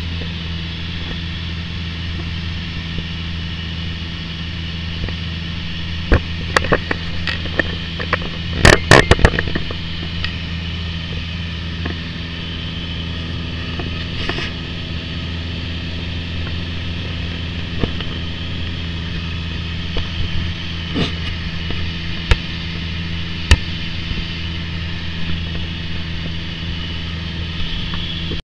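Piper PA-28 single-engine piston aircraft droning steadily in cruise, heard from inside the cabin. Sharp knocks and clicks come on top now and then, loudest in a quick cluster about nine seconds in.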